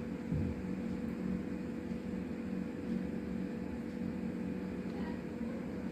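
Steady low hum with a constant tone and a faint hiss: background machine noise with no distinct event.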